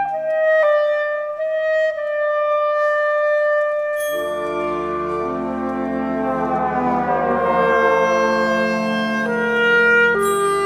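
Solo clarinet holding long notes, joined about four seconds in by the orchestra with a low sustained chord whose upper voices slide downward in pitch.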